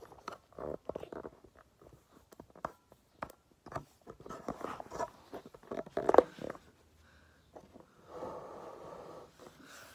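Handling noise on a phone's microphone: rubbing, scrapes and clicks as the phone is moved about, with a louder knock about six seconds in, then a short steady muffled sound near the end.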